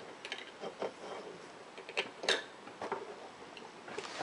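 Light plastic clicks and taps of a small toy grill being handled: its lid opened, a griddle piece lifted out and the lid shut again. The sharpest two clicks come about two seconds in.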